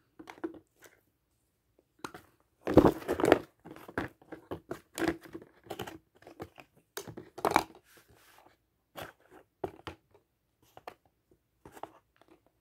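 Plastic toy ice cream pieces being set into a cardboard box display by hand: irregular rustling, scraping and clicking of plastic against cardboard, with the loudest bursts about three seconds in and again about halfway through.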